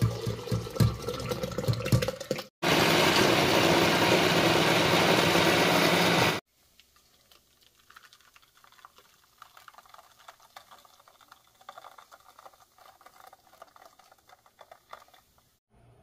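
Cooked fish broth poured from a pot into a glass blender jar, splashing and gurgling. After a cut, the blender runs steadily for about four seconds, grinding the boiled fish into soup, and stops abruptly. Then comes a faint, irregular trickle and patter as the blended soup is poured through a metal sieve.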